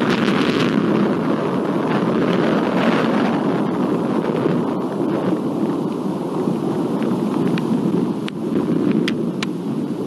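Thunder rolling on as a long, steady low rumble during a thunderstorm, with a few sharp ticks near the end.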